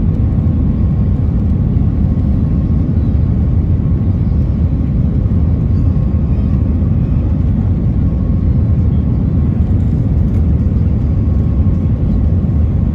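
Steady cabin rumble of an Airbus A320-family airliner on final approach, flaps extended: engine and airflow noise heard from over the wing, with a faint steady whine above it.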